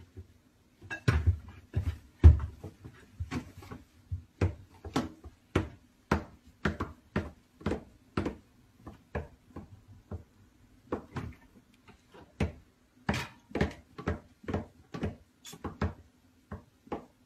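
Repeated knocks and clatters of pots, pans and lids being handled inside a kitchen cupboard, about two a second and uneven in loudness, over a faint steady hum.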